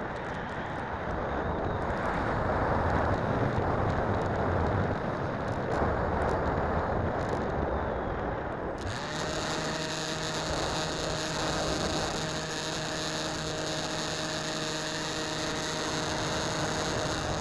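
Air rushing over an RC plane's onboard camera, then about halfway through the Skywalker's electric brushless motor and pusher propeller start running with a steady hum and a high whine.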